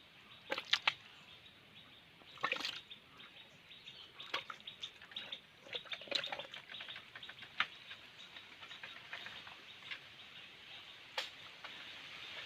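Water and wet mud splashing and squelching in short, irregular bursts, as hands dig in a waterlogged ditch.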